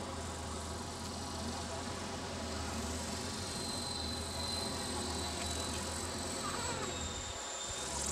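Ikarus Eco 8 electric RC helicopter in flight: a steady high-pitched whine from its electric motor and drive, with a low hum underneath. The whine wavers slightly in pitch as the helicopter manoeuvres.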